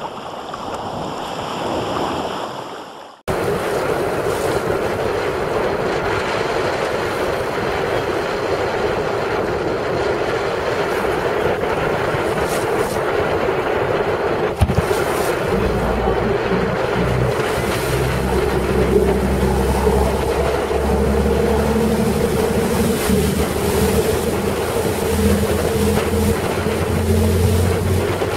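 A short whooshing intro sound that cuts off about three seconds in. Then comes steady wind buffeting the microphone and water rushing past a chase boat running flat out at about 18 knots. The boat's motor drones steadily and becomes more prominent about halfway through, with a single knock just before.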